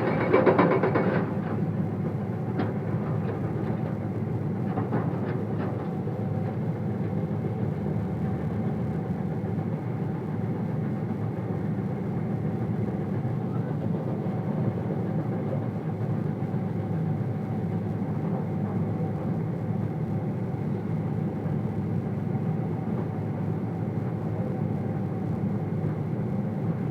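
Komatsu excavator's diesel engine running steadily under load, with a short burst of rapid hammering from its hydraulic breaker on stone right at the start and a few faint knocks a few seconds later.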